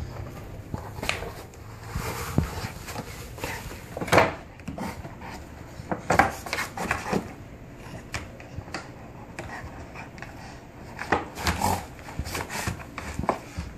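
A golden retriever tearing and chewing a cardboard frozen-pizza box: irregular crinkles, rips and knocks of cardboard, with the box scraping on a wooden floor. The loudest bursts come about four, six and eleven seconds in.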